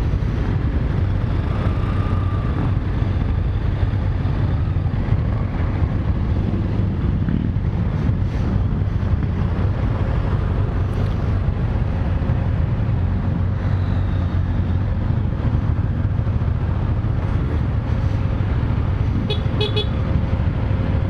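Motorcycles riding slowly in a column, heard from the rider's own Aprilia Caponord 1200 Rally with its 1200 cc V-twin: a steady low engine rumble. Near the end, a short run of rapid high beeps cuts in.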